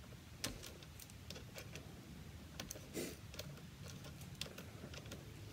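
Faint, scattered metallic clicks and ticks as a screw is turned into an airsoft shotgun's handguard with a link of a Leatherman tool bracelet, the bracelet's steel links clinking; one click about three seconds in is a little louder.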